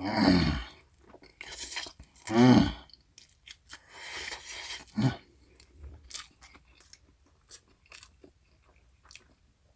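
A man eating cold spicy mixed noodles close to the microphone: chewing and slurping with small wet clicks. Two short wordless vocal sounds come at the start and about two and a half seconds in.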